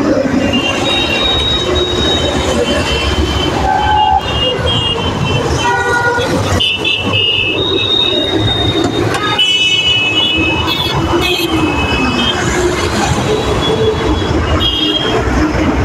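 Container freight train crossing a rail bridge overhead: a steady heavy rumble of wagons with high wheel squeals that come and go. Road traffic passes beneath, with a couple of short horn toots.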